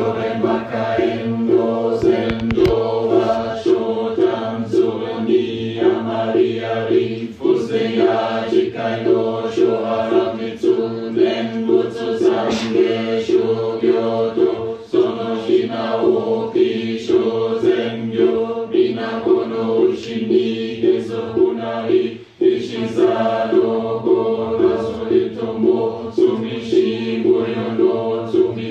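A group chanting a Zen sutra in unison on one steady pitch, with a sharp knock about twice a second keeping the beat. The chant breaks off briefly about three-quarters of the way through.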